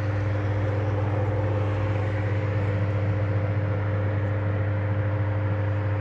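A looped recording of steady electronic tones, one of them 528 Hz, played loud through loudspeakers from a phone: a strong low hum with several steady higher tones layered above it. Under it runs a crackling noise that the player says is not in the recording.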